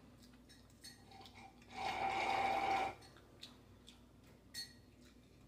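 A person eating scrambled eggs with a fork: a few faint clicks, and about two seconds in a loud breathy hiss lasting about a second.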